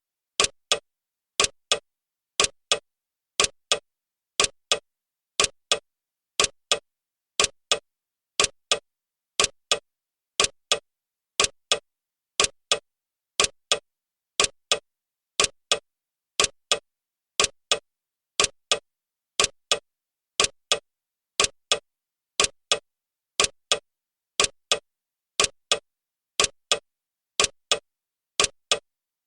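Clock ticking steadily, about once a second, each tick a sharp double click with silence between ticks: the ticking of a countdown timer.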